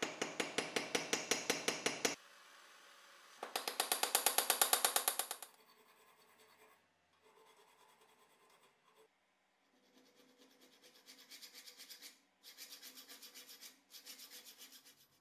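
A hammer tapping a copper piece held in pliers on a steel bench vise, in two quick runs of about six light blows a second. Then a flat file rasping back and forth across the copper clamped in the vise, about four strokes a second, with short breaks.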